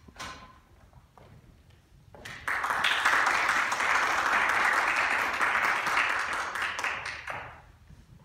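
Audience applauding, starting suddenly about two seconds in, holding steady, and dying away near the end.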